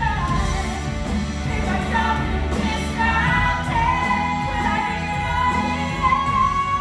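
A woman singing a stage-musical rock number over full band accompaniment, her melody gliding between notes; a high note is held steadily near the end.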